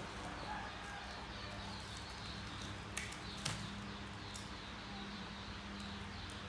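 Steady low hum with faint, high, repeated chirping, and two sharp clicks about three seconds in.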